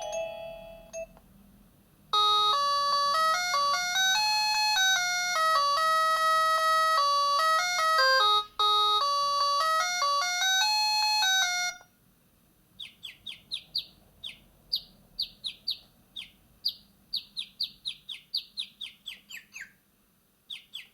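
Built-in ringtones of a MaxCom Strong MM917 3G phone playing through its loudspeaker: a bright electronic melody of quick chiming notes for about ten seconds, then, after a short pause, a rapid run of short chirps that each slide down in pitch.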